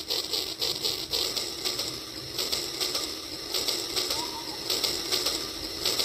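Toy steam locomotive running on plastic track, its motor and gears giving a rhythmic clicking chug of several beats a second.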